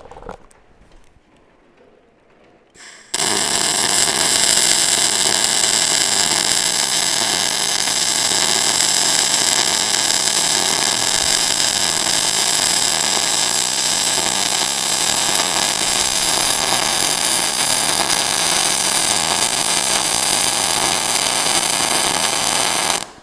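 Millermatic 255 MIG welder arc in short-circuit transfer on 0.035 wire with 90/10 argon-CO2 gas, with the steady crackling, bacon-frying sound typical of short-circuit welding. The arc strikes about three seconds in and runs without a break until it stops just before the end.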